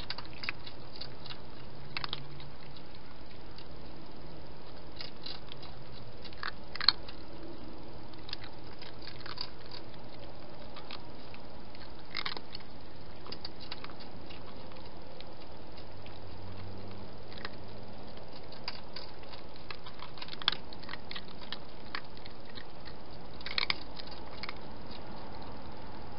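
Cat crunching dry food: irregular sharp crunches and clicks, a few louder than the rest, over a steady hiss.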